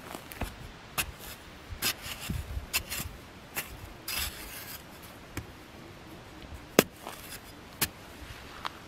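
A small metal hand spade chopping and scraping into dry, clumpy soil, in irregular strokes roughly once a second. There is a longer scrape about four seconds in and the sharpest strike near seven seconds.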